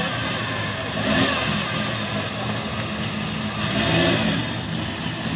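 Engine of an S130 Nissan Fairlady Z idling as it rolls in slowly, blipped up briefly about a second in and again near four seconds.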